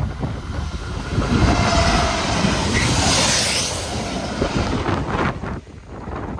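Class 66 diesel locomotive passing close by, its two-stroke V12 engine and wheels on the rails building to a loud peak and easing off. The sound drops away sharply about five and a half seconds in, leaving wind buffeting the microphone.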